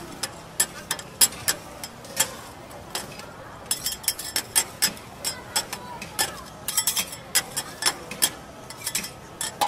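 Metal spatulas clacking and scraping on a flat-top steel griddle while prawns and onions are tossed: a run of sharp, irregular clicks, several a second, thickest around the middle and again near the end.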